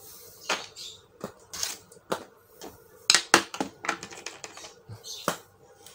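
Irregular clicks and knocks of the plastic casing of an Asus X42DE laptop being picked up and handled during reassembly, with a cluster of louder knocks a little after three seconds in.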